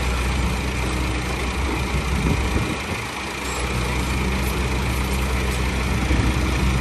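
Diesel engines of a Hitachi tracked excavator and a Massey Ferguson tractor running steadily, the low engine note easing briefly about halfway through as the excavator swings and drops a bucket of soil into the tractor's trailer.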